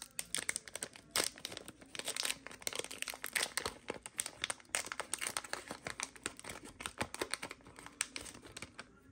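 Foil trading-card booster pack crinkling and tearing as it is pulled open by hand, a dense run of irregular crackles.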